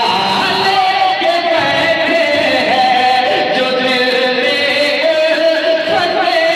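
A male singer performing a kalam, devotional Urdu verse, in long held notes that waver and glide in pitch.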